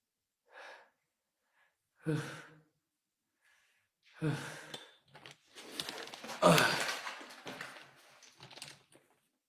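A person's voice in sighs and heavy breathing: two short groaning exhalations about two seconds apart, then a longer breathy stretch with a voiced sigh at its loudest.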